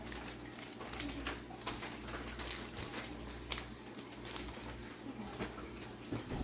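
Trading card pack wrapper and cards being handled: irregular small crinkles and clicks, over a steady low hum.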